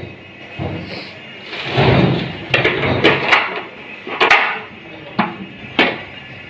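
Kitchen utensils knocking and clattering, about six sharp knocks spread over several seconds, with a couple of longer scraping noises in between.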